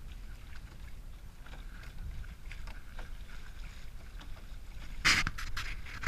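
Rowcruiser sailing rowboat moving fast through the water: a steady low wind rumble on the microphone with water hissing along the hull, then a louder splash about five seconds in followed by a few smaller ones.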